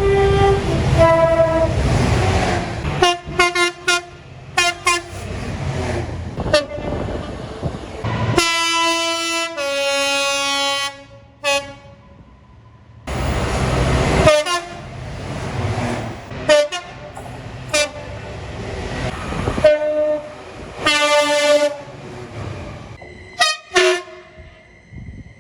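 British train horns sounded by passing trains, blast after blast: short toots and longer blasts that step between two notes, with the rumble of the trains going by.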